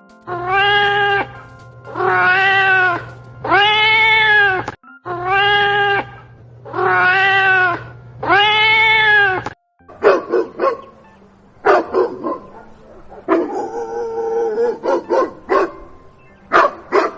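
Cat meowing: six long meows, each rising and falling in pitch, in two sets of three. From about ten seconds in, a dog barks in quick, short barks.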